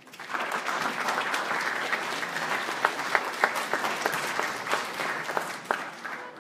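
An audience applauding. The clapping starts about half a second in and dies away near the end.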